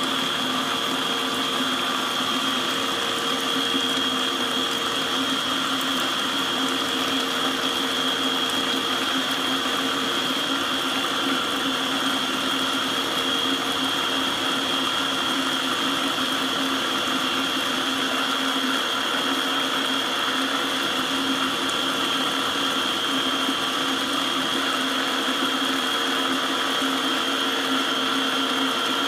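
Small electric blender running at a constant speed, a steady motor hum with a high whine, while oil is drizzled in to emulsify garlic and egg white into a creamy garlic sauce.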